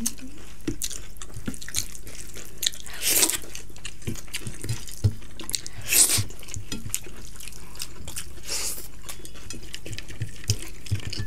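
Close-up eating sounds: wet clicks and squishes of fingers working rice and dal on the plates, with chewing and lip-smacking. Two louder wet bursts come about three and six seconds in.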